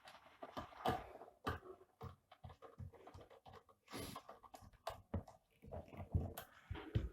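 Irregular clicks, knocks and light thumps of something being handled close to the microphone.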